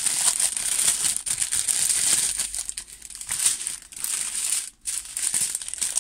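Clear plastic wrapping crinkling and rustling as it is handled and pressed flat by hand, with a brief pause about three-quarters of the way through.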